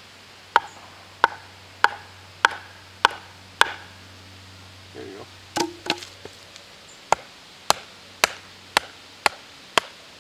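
A large Husqvarna hatchet being driven through a small stick: first a wooden baton knocks on the back of the head six times, evenly, about every 0.6 s. Then, from about five and a half seconds in, the hatchet with the stick stuck on it comes down on a wooden post in a second, slightly faster run of chops, splitting the stick.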